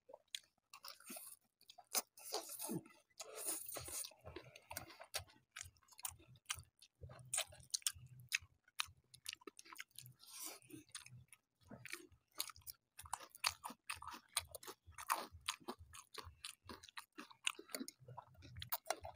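People chewing and slurping spicy noodles, close to the microphone, with many short clicks.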